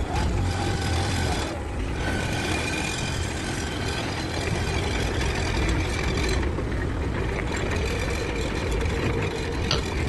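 Forklift engine running steadily with a low hum, and a short click near the end.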